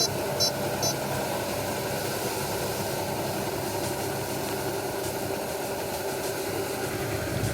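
Kubota ER470 combine harvester running steadily, its engine and machinery giving an even, continuous drone.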